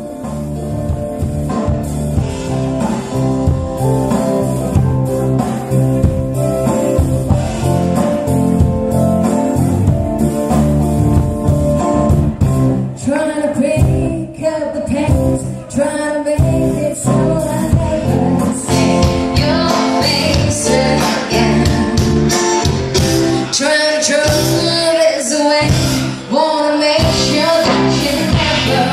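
Live band playing a song: electric guitar, keyboard and drums, with a female vocal coming in about halfway through after an instrumental opening.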